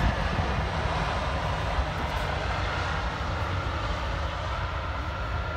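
Jet airliner's engines running as it rolls along the runway: a steady rush of jet noise over a low rumble.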